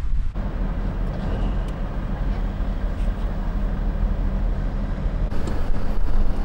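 A Land Rover Defender 90's engine and road noise heard inside its cabin as it drives: a steady low drone.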